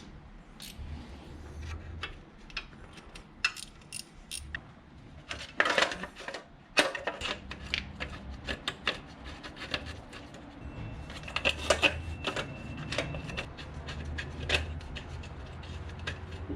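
Metal hand tools and engine parts clinking and clicking irregularly as work goes on in the engine bay, with a few louder clanks in the middle.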